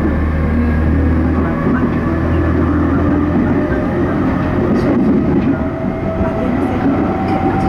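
E231-series commuter electric train running at speed, heard from inside the passenger car: a steady rumble of wheels on rail. The deepest part of the rumble eases about a second and a half in.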